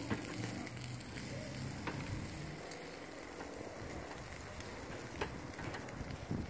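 Meat sizzling over hot charcoal on a kettle grill's grate, a steady crackling hiss, with a few light clicks of metal tongs and spatula against the grate.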